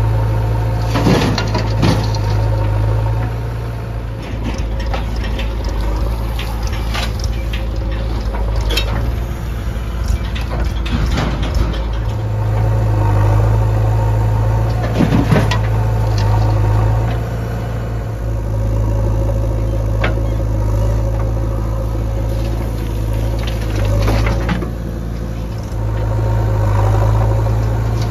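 Diesel engines of a JCB 3DX backhoe loader and a Mahindra tractor running steadily, with scattered knocks and clatters as the loader's bucket works and drops soil into the tractor's trolley.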